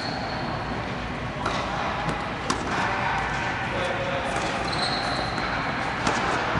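Tennis ball struck by rackets and bouncing on a hard court during a doubles rally: a few sharp pops, three in the first half and one more near the end, over steady background noise in a large indoor tennis dome.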